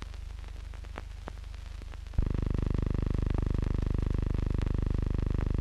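Steady electrical hum with scattered faint clicks and crackle, the noise of a blank newsreel soundtrack. About two seconds in it jumps to a louder, pulsing buzz.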